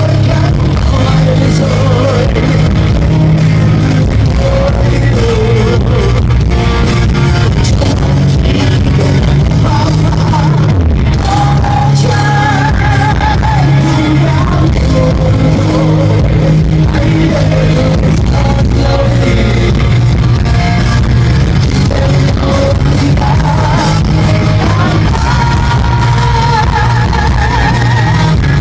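Rock music with a singing voice over a steady band backing, loud and continuous.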